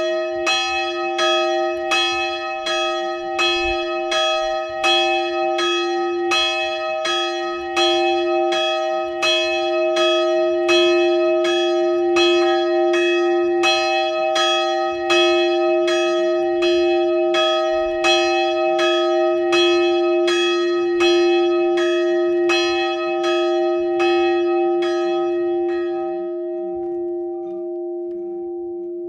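The 132 kg Szent Imre church bell, cast by László Szlezák in 1927 and tuned to D-sharp/E-flat, swinging and ringing, its clapper striking about every three quarters of a second. The strokes stop about 26 seconds in and the bell's hum carries on, slowly fading.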